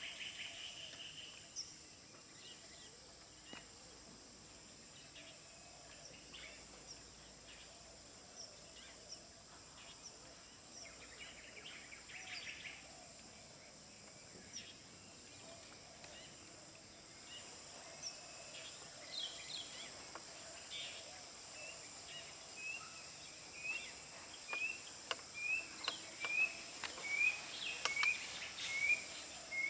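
Outdoor hillside ambience: insects drone steadily at a high pitch while birds give scattered short chirps. About two-thirds of the way in, one bird starts repeating a short rising note roughly every half second or so, getting louder toward the end.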